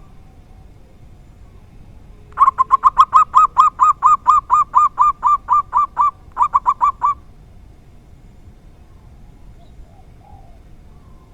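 Zebra dove (perkutut) cooing: a rapid, even run of clipped coos for nearly four seconds, a brief break, then four more coos.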